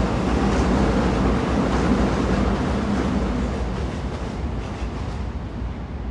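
Train running on rails: a steady rumble that gradually grows quieter and duller over the second half.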